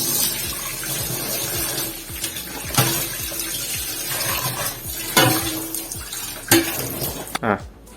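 Water gushing from a plain kitchen tap with no spray attachment, splashing off a plate into the sink, with a few sharp knocks along the way. The spatter is the sign of an uncontrolled stream spilling water over the sink.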